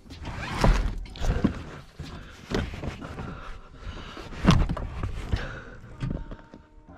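Irregular knocks and thuds, about six of them, with rustling between, as rear seat and trim pieces in a car are handled and pushed back into place.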